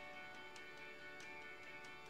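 Faint background music cutting in abruptly: held chord tones with a light tick about every two-thirds of a second.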